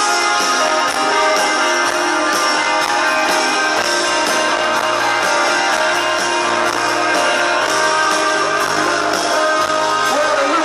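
Live band music through a concert sound system, with a steady beat, recorded from within the crowd.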